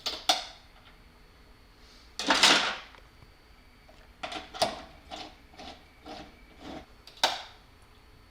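Metal clinks, knocks and a short scrape of hand tools as bolts are started with a 7/16 socket on an extension. There are a few knocks at the start, a brief scrape about two seconds in, then a run of separate clicks.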